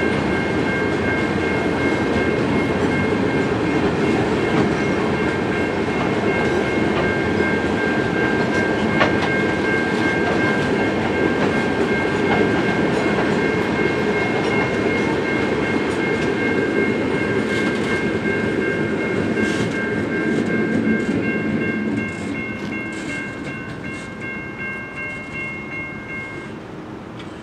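Grain train hopper wagons rolling past with a steady rumble and wheel clatter, fading as the end of the train clears near the end. Over it the level crossing's warning bell rings steadily, stopping shortly before the end.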